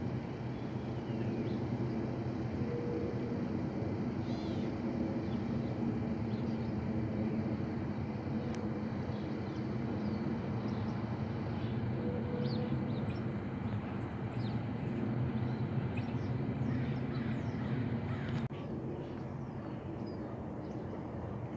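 Steady low rumble of a Boeing 737-800 jet airliner passing high overhead, with birds chirping and calling over it.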